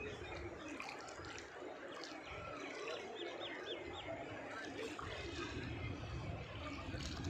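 Outdoor background noise with a low rumble, and a small bird chirping four quick times about three seconds in.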